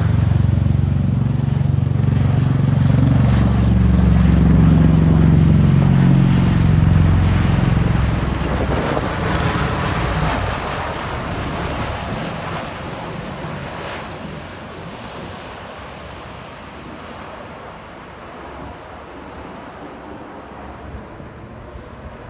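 V-22 Osprey tiltrotor flying overhead in helicopter mode, its proprotors making a loud, deep rotor drone. The drone is strongest for the first several seconds, then fades steadily as the aircraft moves away.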